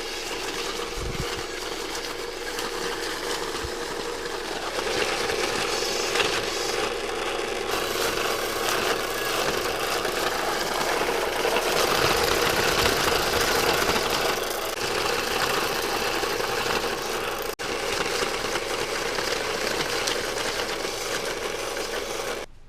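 Electric banknote counter running, feeding a stack of one-dollar bills through continuously, with a momentary break about eighteen seconds in; it stops just before the end.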